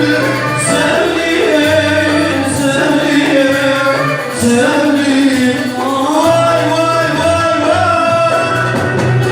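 Turkish uzun hava folk music with singing: an ornamented melody that slides between notes over a low sustained tone.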